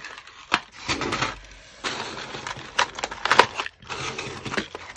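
Clear plastic trays of bagged jewellery being handled and shifted on a table: plastic crinkling and rustling, broken by several sharp clicks and knocks.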